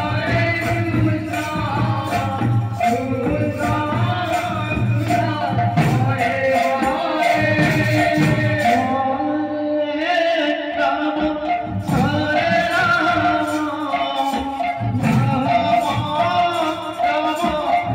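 Devotional kirtan music: a male lead singer over a microphone, accompanied by two-headed barrel drums and jingling metal percussion playing a steady rhythm. The high jingling stops briefly about halfway through, then comes back.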